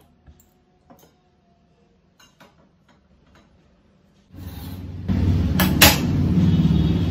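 Light clicks and knocks of kitchen utensils being handled. About four seconds in, a loud steady rumble and hiss of water being heated starts and grows louder a second later, with two sharp clicks near six seconds.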